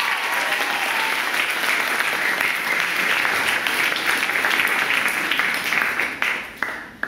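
Audience applauding, a dense crowd of clapping that dies away just before the end.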